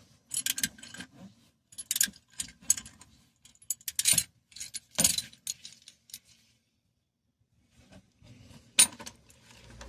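Irregular metal clinks and clicks from a one-size-fits-all oil filter wrench being handled and fitted to the oil filter. After a pause of about two seconds, a single sharp clink near the end is the loudest sound.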